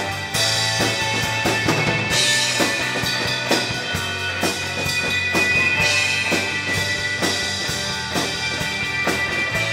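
Small rock band playing live: strummed hollow-body electric guitar, electric bass and a drum kit keeping a steady beat of about two strokes a second. Cymbals crash about two seconds in and again around six seconds in.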